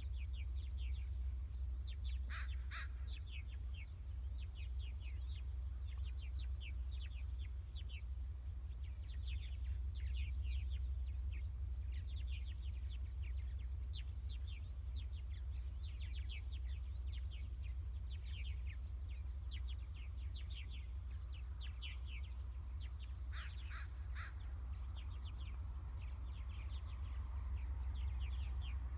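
Birds chirping busily and steadily, with two louder, harsher calls, one about two seconds in and one near the end, over a steady low rumble.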